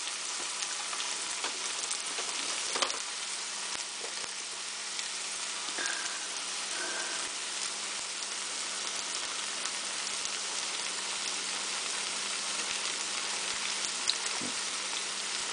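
Hush puppies deep-frying in a pot of hot oil: a steady crackling sizzle, with a few light clicks.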